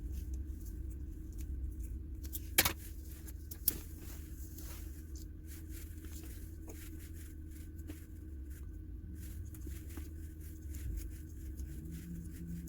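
Small clicks and handling noises, with two sharp clicks a few seconds in, over a steady low hum.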